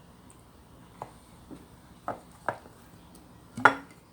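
Tableware being handled: five short clinks and knocks about half a second apart, growing louder, the last and loudest near the end with a brief ring.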